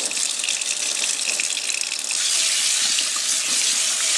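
Kitchen sink faucet running, its water stream splashing over a freshly de-rusted steel train-car part held under it for rinsing. About two seconds in, the rush of water gets louder.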